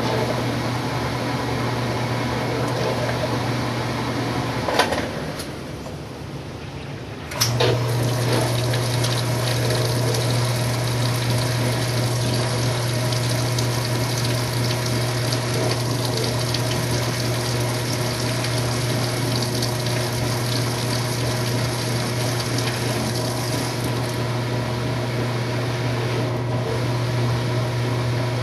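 Washing machine humming steadily with water rushing as it pumps. About five seconds in it clicks off and goes quieter for two or three seconds, then clicks back on and the hum resumes.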